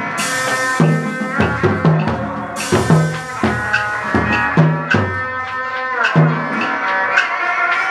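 A traditional hát bội (tuồng) ensemble playing: drum strokes in a repeating pattern under a sustained melody, with two cymbal-like crashes, one at the start and one about two and a half seconds in.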